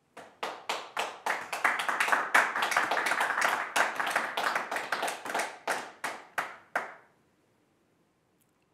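A small group clapping: a few sparse claps that fill in to steady applause, then thin out to single claps and stop about seven seconds in.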